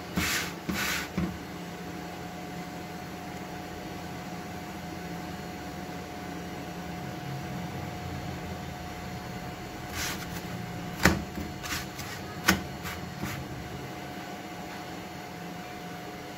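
A roti being shifted by hand across an iron tawa: a brief scraping rustle at the start over a steady low kitchen hum. A few sharp clicks and knocks come about ten to thirteen seconds in.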